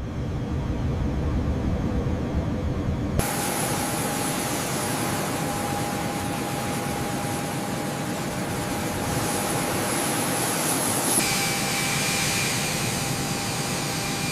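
Jet aircraft engine noise: a low rumble for about three seconds, then a steady rushing noise with a thin, high whine. The whine changes pitch abruptly about eleven seconds in.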